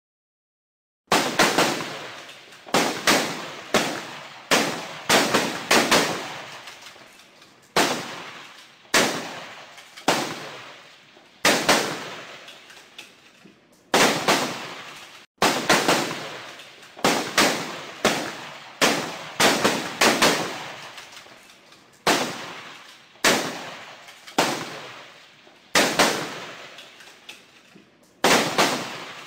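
Recorded gunshots from a shooting range, played by a rifle-training app as background distraction: single sharp shots at irregular intervals, a second or two apart, each followed by a fading echo. They begin about a second in.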